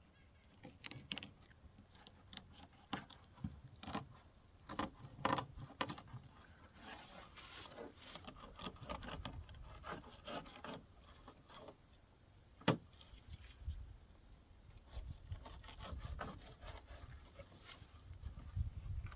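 Fillet knife cutting and scraping along a crappie on a table as the second fillet is taken off: scattered soft scrapes and light clicks, with one sharp knock about two-thirds of the way through. A low rumble rises near the end.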